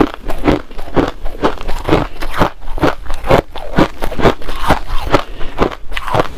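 A person chewing crushed ice: a steady run of crisp crunches, about two to three a second.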